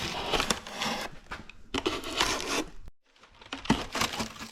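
Rustling and scraping as packaging and parts are handled, in uneven bursts with short clicks, pausing briefly about three seconds in.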